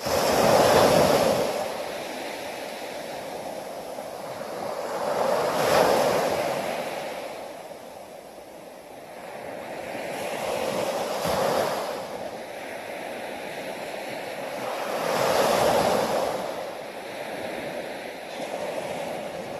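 Small waves breaking and washing up a sandy beach, the surf swelling and fading four times, about every five seconds.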